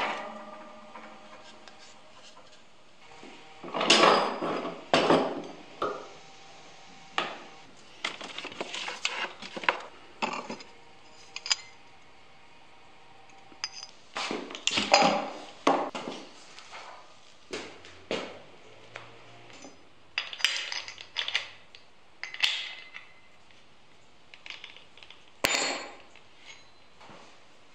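Irregular knocks, clunks and metallic clinks of workshop handling: a heavy wooden block is moved and set into a bench vise, and an angle grinder and its discs are picked up and set down on a wooden workbench. Some of the strikes ring briefly.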